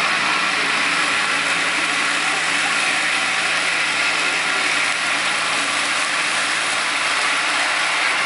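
Mitsubishi MT16D compact tractor's engine running steadily under load while driving its PTO-powered Komondor SFK-105 two-drum mower through the grass. It makes an even, continuous mechanical whirr.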